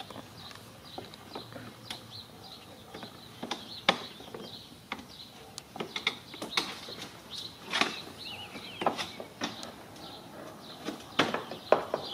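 Plastic grille and bumper trim of a 2009 Lincoln MKX clicking and snapping as the grille's retaining clips are pried loose by hand; sharp snaps come at irregular intervals, with the loudest clustered near the end.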